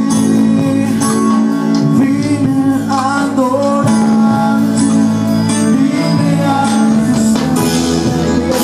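Music: a song with a singing voice over steady instrumental accompaniment.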